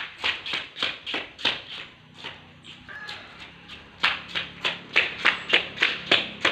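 Footsteps on concrete: a quick, regular series of steps that gets faster and louder about four seconds in.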